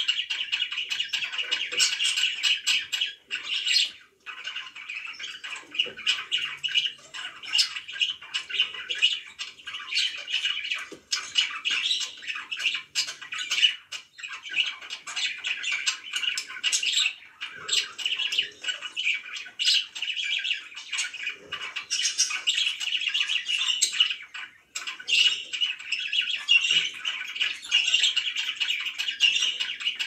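Several budgerigars chattering and warbling together: a busy, continuous stream of quick chirps, squawks and clicks, pausing only briefly a few times.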